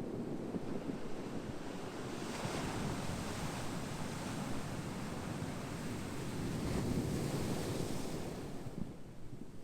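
Ocean waves washing onto shore: a steady low rumble of surf, with a wave surging in about two seconds in and hissing on before easing off near the end.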